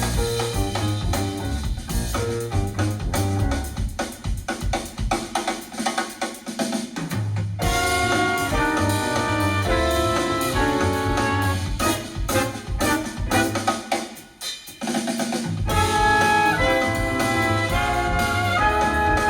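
Jazz-style music with drum kit and brass, played over KEF Q Concerto bookshelf speakers and a subwoofer driven by a Yamaha R-N800A receiver. Drums and bass open the passage, a horn melody comes in about halfway through, and after a brief drop the full band returns.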